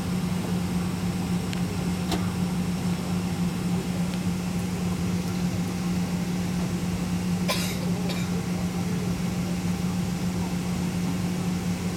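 Boeing 777-200 airliner's jet engines running at taxi power, a steady low hum with an even drone. A brief sharp noise cuts in about seven and a half seconds in.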